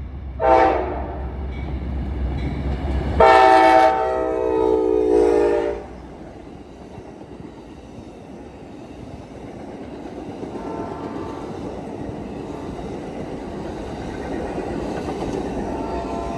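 Amtrak passenger train's locomotive horn: a short blast about half a second in, then a longer, louder blast from about three to six seconds, after which the train rolls past with steady rail noise and a fainter horn sounding twice later on.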